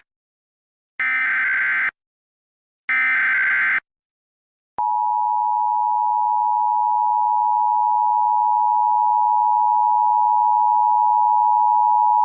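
Emergency Alert System signals: two short bursts of SAME header data screech, each about a second long, then about five seconds in the steady two-tone EAS attention signal begins. These tones mark the start of an emergency alert broadcast.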